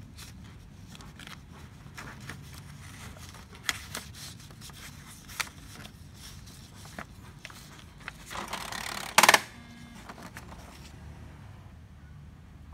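HP Color LaserJet M277n laser printer running as a printed sheet feeds out of the output slot: a steady low hum with scattered clicks, two sharper clicks, and a brief loud rattle about nine seconds in.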